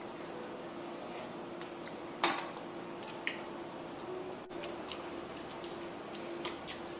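Scattered light clinks and knocks of dishes and utensils over a faint steady hum, with one louder clink about two seconds in.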